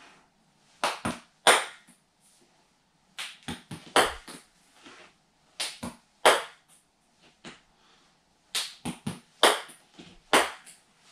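A small ball bouncing off the floor and wall and being batted back by hand: sharp clicks in four quick groups of two to five, with short pauses between.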